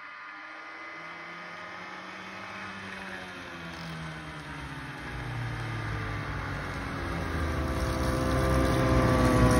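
2021 Ski-Doo Tundra snowmobile's 600 EFI two-stroke engine running as the sled approaches, growing steadily louder as it nears.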